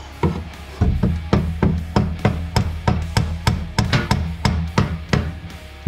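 Background music with a steady drum beat, about three beats a second, over a bass line.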